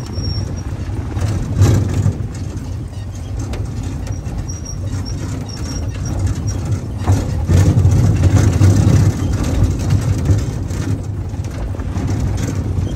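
Wheeled dog-sled cart rolling over a dirt and gravel trail behind a running dog team: a steady low rumble with scattered knocks and rattles.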